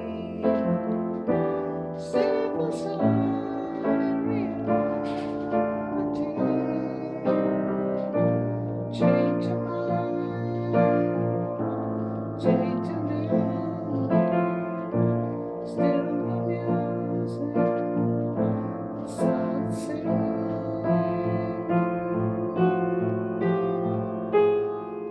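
Piano playing a slow piece, a note or chord struck roughly once a second and left to ring over held low notes.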